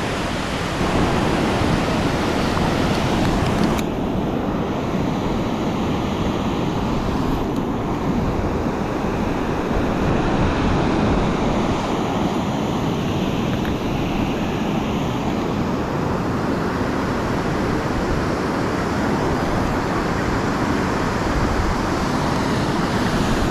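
Steady rush of fast-flowing river water in the outflow below a hydroelectric dam.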